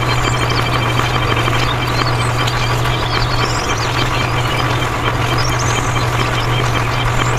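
A steady, unchanging low engine drone, like a tractor engine running at idle, with short high chirps now and then.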